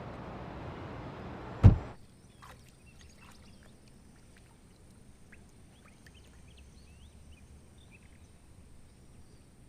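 Steady street and traffic ambience, then a single sharp thump of a car door shutting nearly two seconds in. After it the sound drops to a quiet background with faint, scattered bird chirps.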